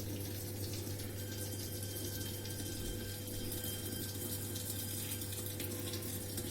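Water running into the tub of a Samsung top-loading washing machine as it fills at the start of an eco tub clean cycle: a steady rush of water with a low hum underneath.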